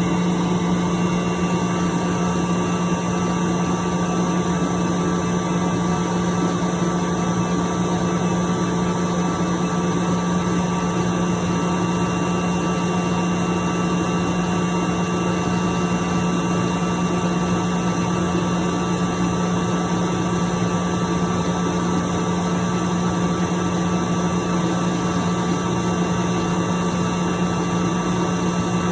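10 HP Sullivan Palatek rotary screw air compressor running steadily: a constant hum with one strong low tone and several higher steady tones, unchanging throughout.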